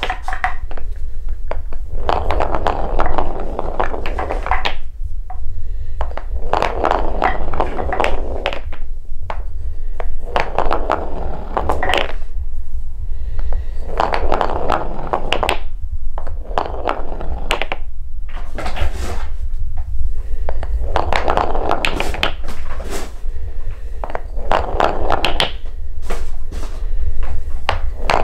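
Balls rolling along a wooden marble-run track and clacking against the line of balls queued ahead of them, in repeated rolling runs of a second or two, each with sharp clicks, every couple of seconds.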